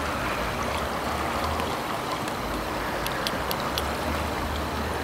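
Steady rush of river water flowing below the bridge, with a low rumble beneath it. A few faint ticks come about three seconds in.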